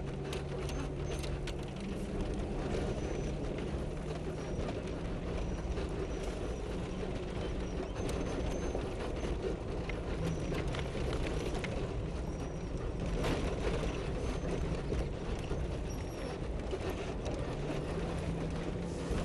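Four-wheel-drive vehicle driving slowly over a rough dirt trail, heard from inside the cab: a steady engine drone whose pitch shifts a little, with rattles, clicks and knocks from the body over the bumps.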